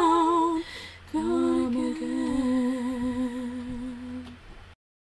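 A woman humming a slow tune in long, wavering held notes: two phrases with a short break about a second in, the second settling on a lower note. The sound cuts off abruptly near the end.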